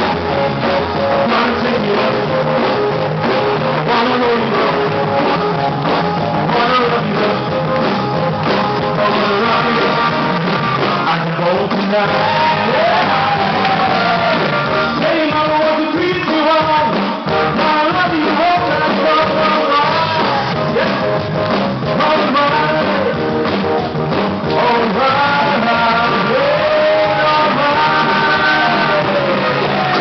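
A loud song with a lead singing voice over steady band backing.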